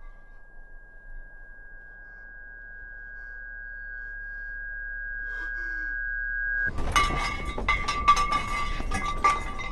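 A steady high-pitched ringing tone over a low hum, growing slowly louder, cuts off suddenly about seven seconds in. A louder outdoor sound full of clicks and crackles takes its place.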